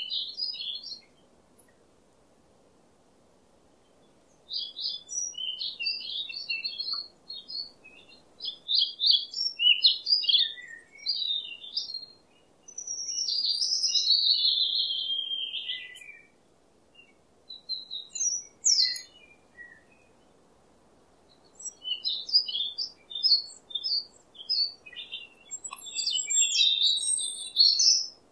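Small birds chirping and twittering in short, high phrases, with a longer falling warble about halfway and pauses of a few seconds between phrases.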